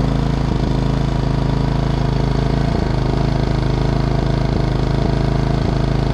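GenMax GM4600i fuel-injected inverter generator running at a steady speed, with a deep tone, a little louder than a Honda EU3200i.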